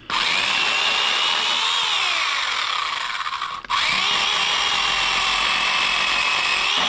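Battery-powered pole chainsaw cutting through a tree limb: the motor whine rises and falls as the chain loads in the wood, in two runs with a brief stop about halfway through.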